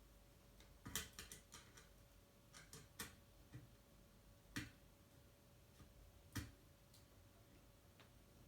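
Small clicks and taps of hands working on the alarm wiring: a quick run of clicks about a second in, then single sharper clicks a second or two apart.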